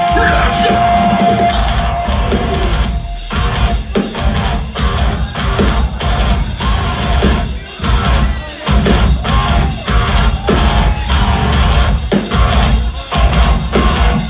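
Progressive metalcore band playing live: heavy distorted guitars and drum kit in a choppy riff broken by repeated short stops, with a held high guitar note near the start.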